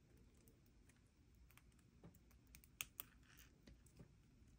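Faint, scattered small clicks of steel jewellery pliers and a metal split ring being worked closed, with two sharper clicks close together about three seconds in.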